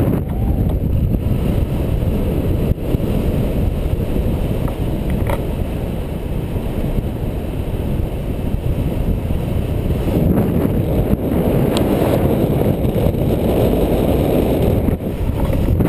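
Wind noise from the airflow of a paraglider in flight, buffeting an action camera's microphone: a loud, steady, low rumble of rushing air.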